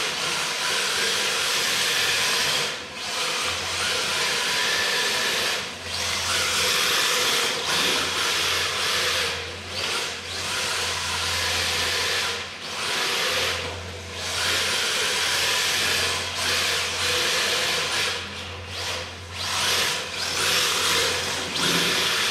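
RC drift car's hard drift tyres hissing as they slide across a tiled floor, with short breaks every couple of seconds as the car transitions between drifts.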